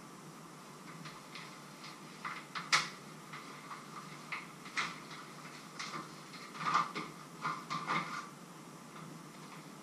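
Irregular light clicks and knocks, a few at a time, with the sharpest one about three seconds in, over a steady hiss.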